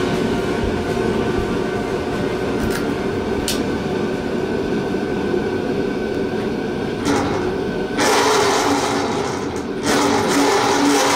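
A 6000 W 72 V electric mini bike motor is run up under throttle, spinning the raised rear wheel. Its sound comes in suddenly about eight seconds in and steps up again about two seconds later.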